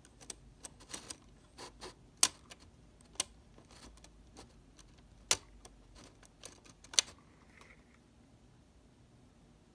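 Light, irregular plastic clicks and taps from a Lego model garage door being run, with three sharper clicks about two, five and seven seconds in, then quiet.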